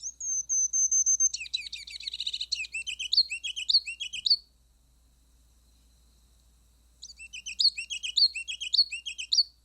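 Male ruby-crowned kinglet singing: soft, high thin notes that run into a fast twittering, then a loud series of repeated two- or three-part notes. A second, shorter song of mostly the loud repeated notes comes about three seconds later.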